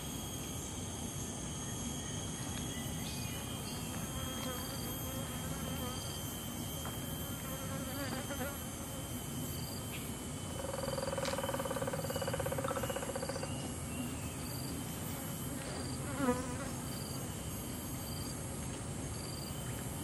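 Buff-necked woodpecker drumming: one even, rapid roll about three seconds long, heard as a steady buzz around the middle. Insects trill steadily throughout, and a short sharp sound comes near the end.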